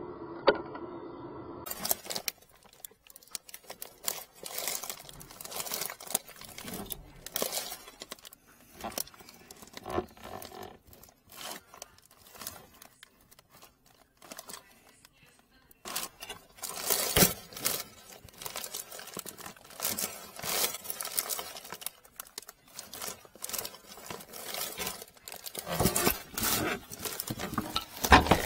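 Gloved hands handling a corrugated sink drain hose and drain pipe: irregular rustling, crinkling, clicks and knocks, with louder clattering about 17 seconds in and again near the end.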